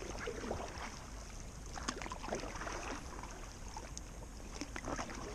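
Gentle river water lapping against an inflatable paddleboard, with scattered small drips and splashes, over a steady low rumble.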